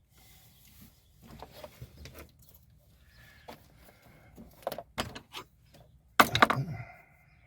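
Hands fumbling a plastic wiring connector against the throttle position sensor on a truck's accelerator pedal: scattered clicks, knocks and rattles. The loudest clatter comes about six seconds in. The connector is not seating.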